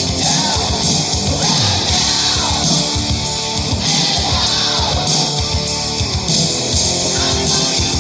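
Rock music with electric guitar and singing played loud through a pair of Bluetooth speakers set up outdoors, heard from some distance away.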